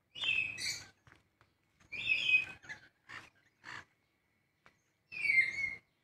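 Small parrots giving loud, harsh screeching calls: three long screeches, right at the start, about two seconds in and about five seconds in, with a few short chirps between them.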